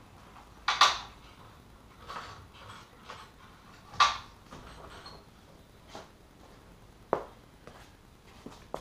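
Steel engine crossmember from a Toyota MR2 clanking and scraping as it is worked loose and moved by hand: two loud metallic bangs, about a second in and about four seconds in, with lighter knocks between and a sharp click near the end.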